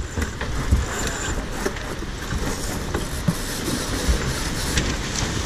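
Steady rush of wind and water aboard a J/111 racing sailboat under way, with scattered clicks and knocks from the deck hardware and rigging.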